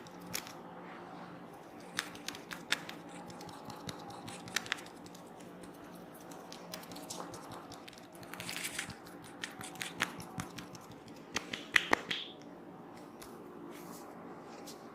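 Hands working over a person's head and hair in a massage, making scattered sharp clicks and snaps, the loudest as a quick cluster near the end, with a brief rustle about halfway through and a faint steady hum underneath.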